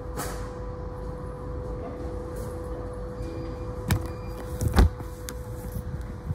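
Steady low rumble with a faint steady hum, broken by two sharp knocks about a second apart near the middle, the second louder: handling knocks as the filming phone is moved against the window.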